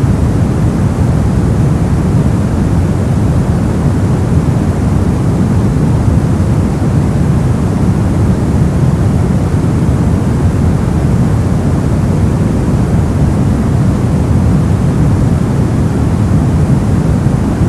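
Brown noise: a steady, loud, deep rumbling hiss with most of its energy in the lows, unchanging throughout.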